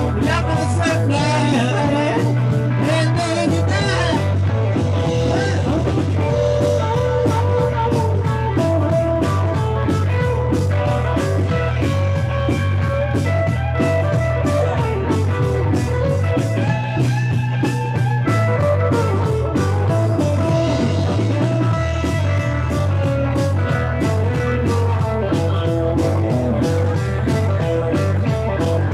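Rock music with a steady beat, guitar and singing.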